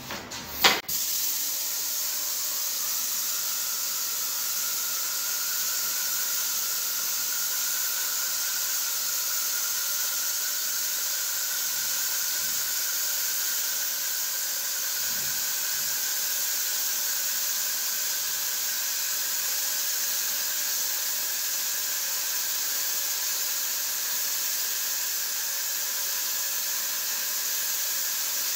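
Graco 395 airless paint sprayer spraying undercoat onto a ceiling: a sharp click under a second in, then the steady hiss of paint atomising at the spray tip.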